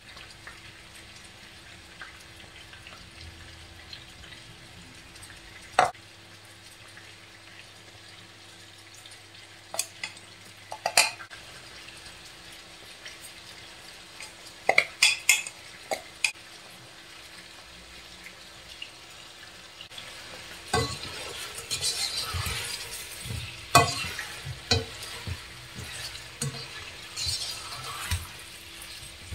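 Marinated beef pieces sizzling as they fry in oil in a granite-coated pan, with a few sharp knocks of a utensil against the pan. About two-thirds of the way through the sizzle grows louder, with a run of clatter as the meat is stirred.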